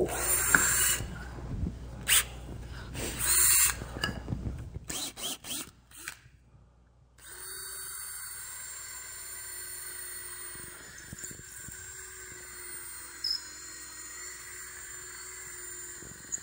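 Cordless drill with a split-point bit running in a screw hole in a board, rocked back and forth to elongate the hole so the wood can move. It is louder and rougher for the first few seconds, stops briefly about six seconds in, then runs on with a steady, even whine.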